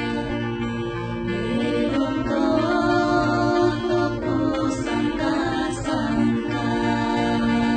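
Background music with singing voices over a steady low pulse.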